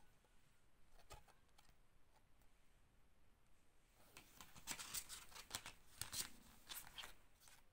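Faint rustling and scraping of a fold-out cardboard CD sleeve being handled and folded shut, with a single soft click about a second in before a quiet stretch.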